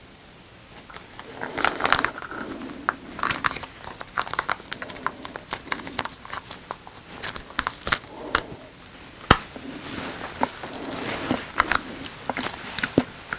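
Plastic packaging crinkling and tearing as a takeaway meal is handled and opened, with many irregular sharp clicks and crackles and one louder snap about nine seconds in.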